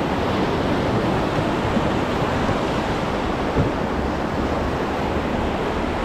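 Whitewater rapids of the Beas River rushing around an inflatable raft: a steady, even rush of turbulent water.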